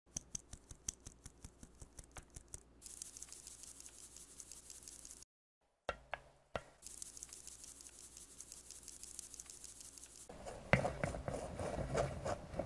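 Flour sifted through a fine metal mesh sieve: a hand taps the sieve's rim in a quick run of light taps, about five a second, and the powder falls through with a soft hiss. After a break, almond flour is tipped into the sieve with a knock or two and then pressed and scraped through the mesh with a plastic spoon, loudest near the end.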